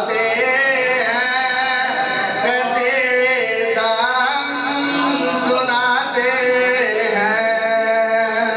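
A man singing a manqabat, an Urdu devotional poem in praise of Ali, into a handheld microphone, in long held melodic phrases.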